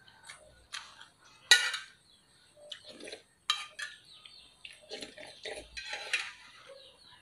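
Metal spoon clinking and scraping against a metal bowl during eating, in a string of short knocks, the loudest clink about a second and a half in.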